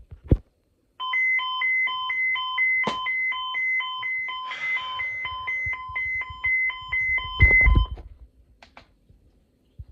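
Electronic alert tone: short beeps alternating quickly between two pitches, about four a second, for about seven seconds, ahead of a broadcast weather warning. A loud thump comes near the end of the beeping.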